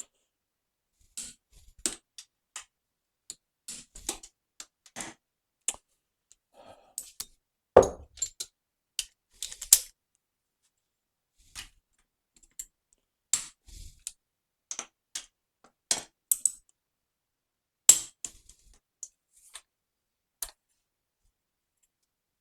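Irregular sharp metallic clicks and clinks from a socket wrench and sockets working the cylinder head bolts of a 1975 Triumph Trident T160, as the head is re-torqued. A few of the clicks are markedly louder than the rest.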